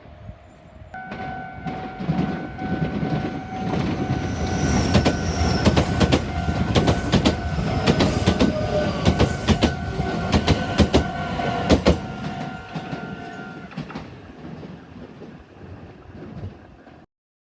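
A Meitetsu Nagoya Main Line train passes over a level crossing, its wheels clacking sharply over the rail joints for about ten seconds before fading away. A steady ringing tone from the crossing's warning bell runs through the passage and stops about three-quarters of the way in. The sound cuts off abruptly near the end.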